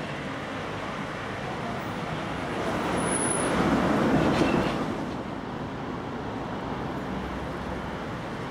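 Outdoor traffic noise: a steady hum, with a vehicle passing that swells up and fades away between about three and five seconds in.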